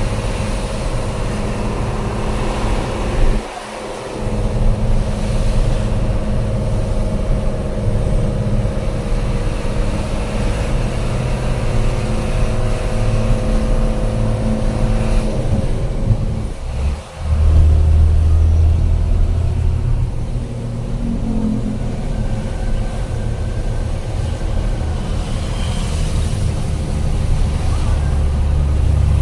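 Truck engine running steadily as heard from inside the cab on the move. It dips twice, briefly, a few seconds in and again about halfway, and after the second dip a deep drone is stronger.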